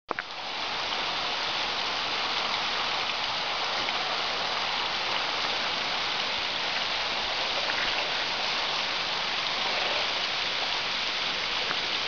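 A thin waterfall, running low, trickles and splashes down a steep rock face, making a steady hiss of falling water much like rain. There is a short click right at the start.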